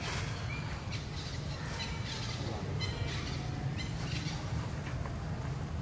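Birds chirping in short high trills several times, over a steady low rumble.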